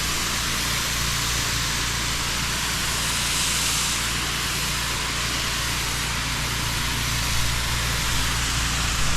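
Pressure washer lance spraying water onto block paving, a steady loud hiss over the low, even hum of the pressure washer's motor.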